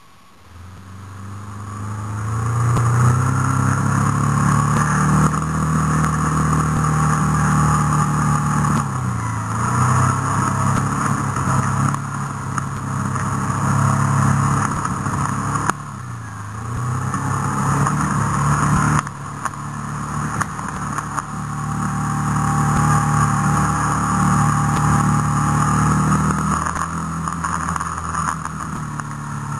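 Off-road vehicle's engine running as it travels along a dirt track. The engine note drops and picks up again twice, about nine and sixteen seconds in, as the throttle eases off and opens up.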